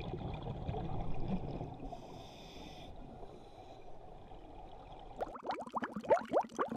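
Muffled underwater noise picked up through a camera housing, with a brief hiss about two seconds in. About five seconds in, music with quick, sharply rising notes starts.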